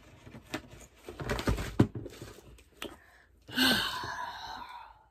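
Handling and movement noises: light knocks and rustling, with a sharper thump a little under two seconds in, then a louder stretch of rustling and scuffling near the end.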